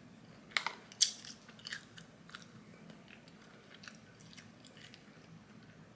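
A person chewing a breaded chicken nugget: a few sharp wet mouth clicks in the first two seconds, the loudest about a second in, then fainter clicks as the chewing goes on.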